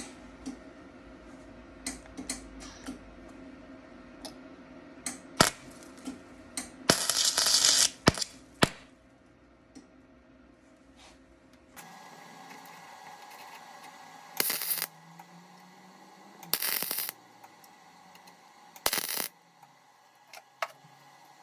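Welder laying short tack welds on a sheet-metal patch panel: four brief crackling bursts, each about half a second to a second long, with sharp metallic clicks and clinks between them.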